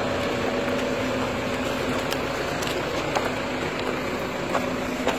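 A motor vehicle's engine running steadily with a low hum, under general street noise and a few faint clicks.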